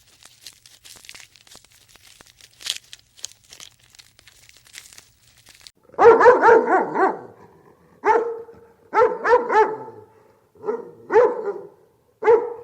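A dog barking in a series of short barks, some doubled, starting about halfway through after several seconds of faint clicking.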